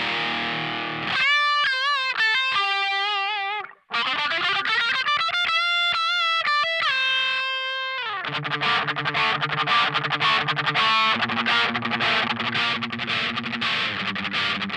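Electric guitar through a T-Rex Nitros Hypergain distortion pedal, heavily distorted. It plays sustained lead notes with wide vibrato and bends, stops abruptly about four seconds in, then carries on with a held note sliding down. From about eight seconds it switches to a fast chugging rhythm riff on low notes.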